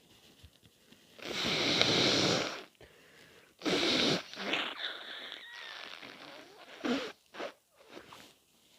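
A person with a head cold blowing a congested nose: a loud blow held for over a second, a second loud blow about two seconds later that trails off, then a few short snuffles.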